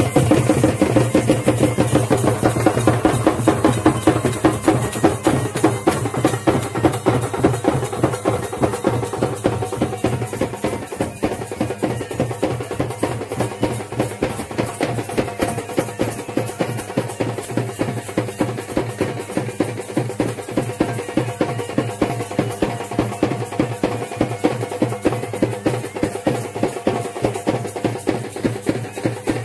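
Traditional drumming with a fast, steady beat, the strokes crisp and close together, a little louder in the first few seconds.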